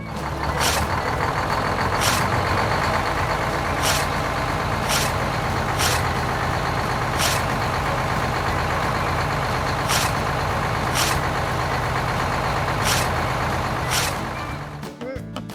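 A heavy vehicle's engine running steadily, with about ten brief sharp sounds every one to two seconds, before it fades away near the end.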